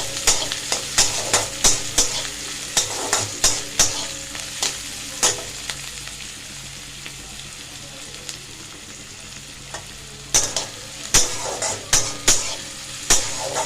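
Onion and green chillies frying in oil in a kadai, sizzling steadily while a spatula stirs and knocks against the pan in quick strokes. The stirring stops for a few seconds in the middle, leaving only the sizzle, then picks up again near the end.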